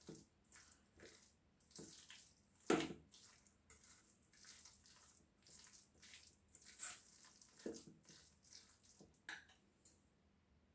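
Spoon mixing a moist boiled-corn and spice filling in a steel bowl: faint, irregular wet squelches and scrapes, with one louder knock about three seconds in.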